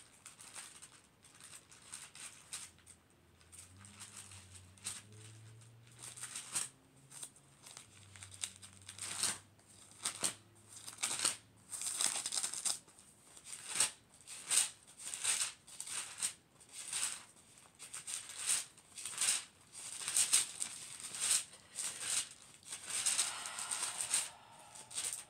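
Pages of a Bible being leafed through, a long run of quick papery rustles and swishes while a passage is looked up.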